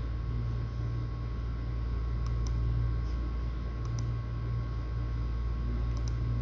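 Steady low electrical hum with a faint high tone, and three pairs of faint sharp clicks spaced about two seconds apart.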